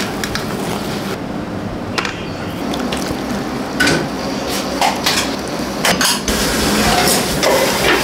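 Restaurant kitchen clatter over a steady background rush: scattered clinks and knocks of utensils, a metal strainer and ceramic bowls as noodle bowls are plated.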